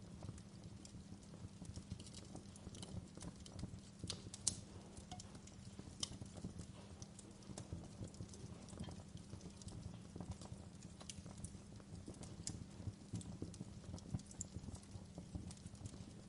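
Fireplace fire crackling: irregular sharp pops and snaps over a low steady rumble.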